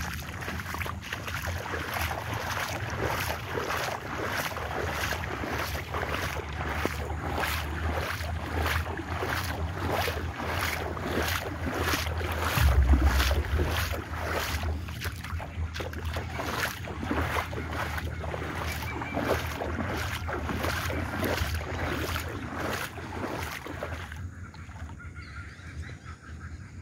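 A person wading through floodwater: sloshing, splashing steps about twice a second over a low rumble, with one heavy low bump about halfway through. The steps stop shortly before the end.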